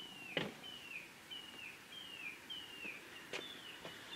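A small bird chirping faintly and repeatedly, a short falling note about twice a second, with a couple of faint clicks.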